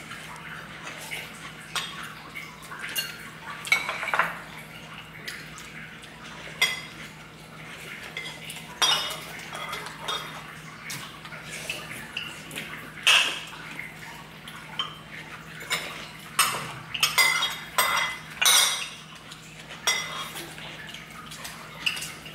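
Cutlery clinking against dishes in irregular taps and clinks, some louder than others, over a steady low hum.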